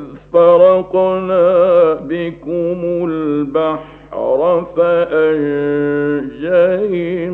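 A man chants Quran verses in the melodic, drawn-out style of tajweed recitation. He sings several long, ornamented held phrases with brief breaks between them. A faint steady hum from the old radio recording runs underneath.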